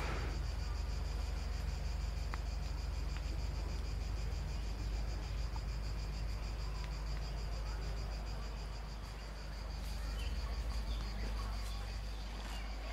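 Steady high-pitched insect chorus with a fine, rapid pulse, over a low rumble.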